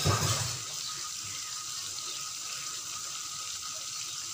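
Blended chili paste frying in oil in a wok over a low gas flame: a steady sizzle with bubbling. A brief knock right at the start.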